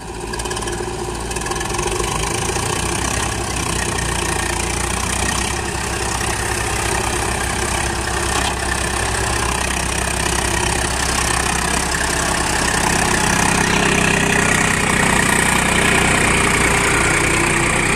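Diesel engines of farm tractors and a backhoe loader running steadily at low revs, a continuous low pulsing drone.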